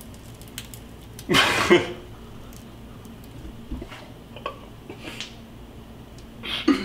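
A man's short wordless vocal outburst about a second in and a brief laugh near the end, with faint clinks and scrapes of a plate against a frying pan as a half-cooked tortilla is turned back into the pan.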